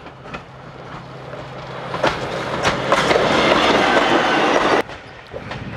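MÁV Bzmot diesel railcar passing close by, its running noise and the clickety-clack of its wheels over the rail joints growing louder as it approaches. The sound cuts off suddenly just before the end.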